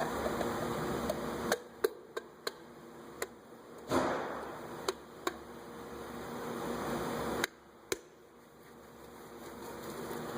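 A series of about ten sharp knocks and clicks, unevenly spaced, with one louder knock about four seconds in, as a part is tapped and pressed into its groove on the wheel hub.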